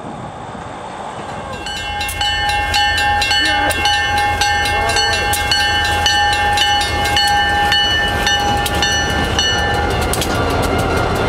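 Freight train noise, faint at first, then about two seconds in a train passing close by: a low steady rumble, rapid clicking of wheels on the rails, and several steady high-pitched tones that fade out near the end.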